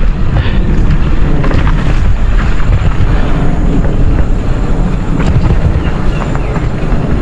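Wind buffeting the microphone of a mountain bike running down a dirt downhill trail, a loud steady rumble, with scattered clicks and rattles from the bike and tyres going over rough ground.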